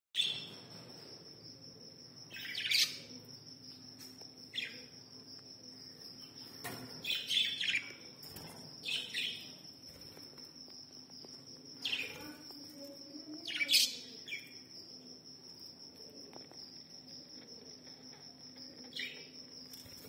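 Caged budgerigars giving short chirps in scattered bursts, about seven of them, over a steady high-pitched tone.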